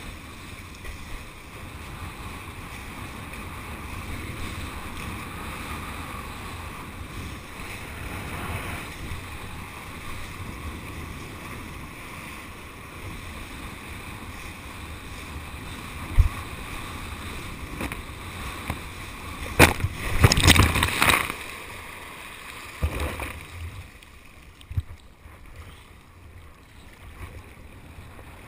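A kiteboard riding across the water: a steady rush of wind and water on the camera microphone, with a cluster of loud knocks and splashes about two-thirds of the way through and a few smaller ones after it.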